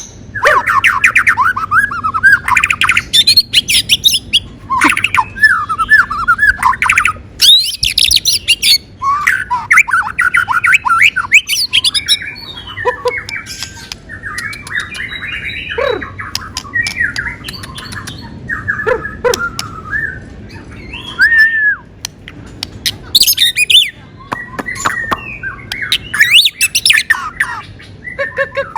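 A bird chirping and squawking in busy phrases of rapid, sharp notes, with a few short pauses between bursts.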